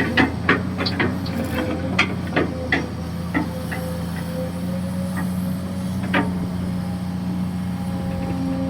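Hydraulic excavator's diesel engine running steadily, with a run of sharp knocks in the first few seconds and one more about six seconds in, typical of the bucket and linkage knocking while digging.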